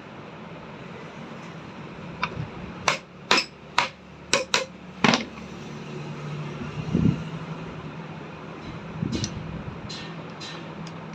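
Hammer tapping the end plate of an electric churner motor down onto its body to seat it: a quick run of about seven sharp knocks, then a few lighter taps near the end.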